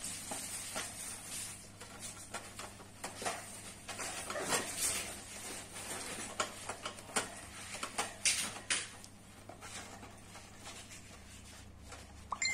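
A hamster moving about its wire-and-plastic cage, making irregular small clicks and scratchy scrapes, with a sharper click near the end.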